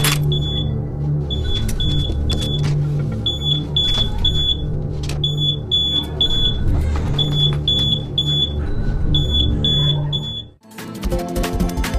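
Smoke alarm sounding: high beeps in groups of three, each group followed by a short pause, which is the standard fire-evacuation pattern, over a low rumbling hum. It cuts off about ten and a half seconds in.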